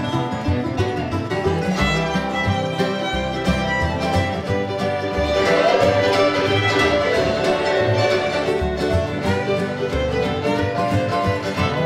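Fiddle playing an instrumental solo in a swing jug-band tune, backed by strummed guitars and the steady low plucked notes of a washtub bass.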